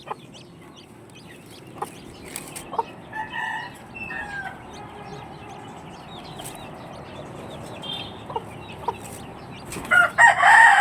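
Chickens clucking with scattered short calls, and a loud call about ten seconds in.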